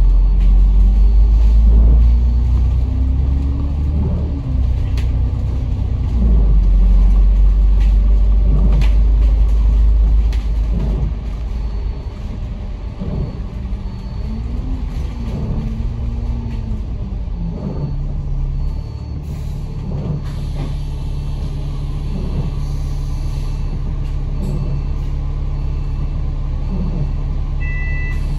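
Diesel bus engine heard from inside the bus, pulling hard with its pitch rising and falling through the gears, then easing to a lower, steadier running tone. A repeating electronic beep starts near the end.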